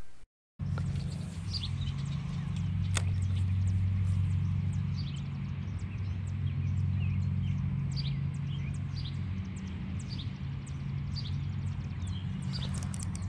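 Small birds chirping repeatedly over a steady low hum, with a single sharp click about three seconds in.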